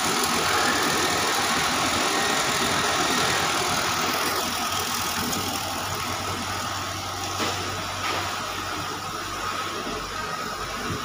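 Soya chunk extruder machine running: a steady mechanical drone with a broad hiss, joined by a low hum about halfway through and a single brief knock near the end.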